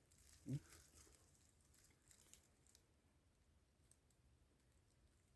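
Near silence: faint rustling and a few light clicks, with one brief low murmur about half a second in.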